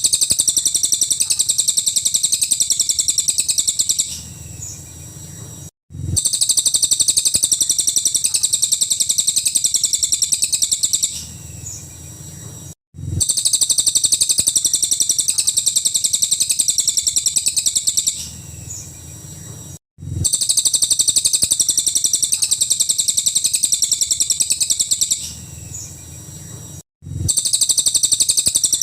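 Cililin bird singing its full rapid-fire song: fast, high-pitched runs of notes about four to five seconds long, each followed by a short quieter pause, the same phrase repeating about every seven seconds as a looped recording with a brief dropout before each repeat.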